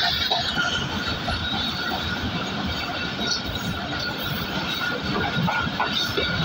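Passenger trains running at speed on parallel tracks: a steady rumble and clatter of coach wheels on the rails, with a faint steady squeal, heard from an open window of one of the moving trains.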